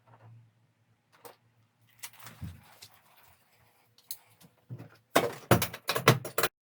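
Scattered clicks and knocks of plastic air-conditioner parts being handled and fitted, with a quick run of louder knocks near the end that cuts off suddenly.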